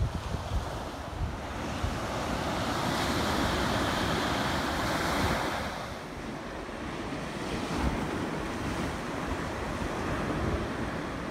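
Ocean surf breaking and washing up the beach, with wind buffeting the microphone in low gusts. The surf's hiss swells about two seconds in and eases off around six seconds.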